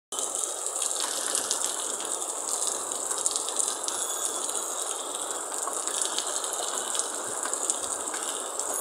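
Heavy rain falling steadily, a dense hiss of water with many single drops striking close by.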